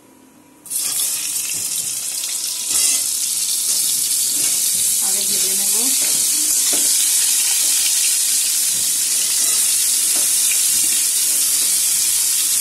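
Ridge gourd pieces dropped into hot oil in a steel wok. A loud, steady frying sizzle starts suddenly about a second in and gets louder a couple of seconds later as more pieces go in.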